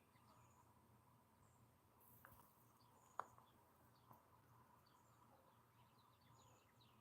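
Near silence outdoors: faint, scattered small bird chirps, with one sharp click a little after three seconds in.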